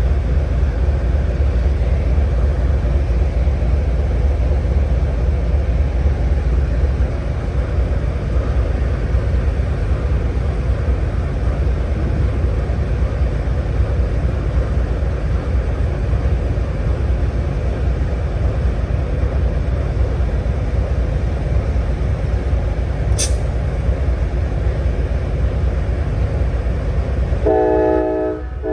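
Amtrak Siemens Charger diesel locomotive running with a steady low rumble. A brief click about 23 seconds in. Near the end its multi-tone horn starts sounding.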